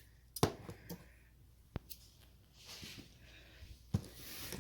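Cardboard box and packing being handled as it is opened: a few light knocks, about half a second in, near two seconds and near the end, with soft rustling in between.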